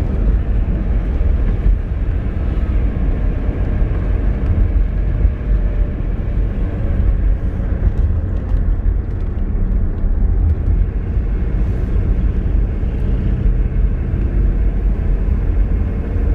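Car driving along a road, its engine and tyre noise making a steady low rumble.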